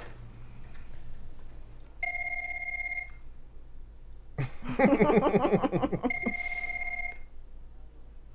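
Office desk telephone ringing twice, a steady electronic ring about a second long each time, with a short loud burst of voice between the two rings.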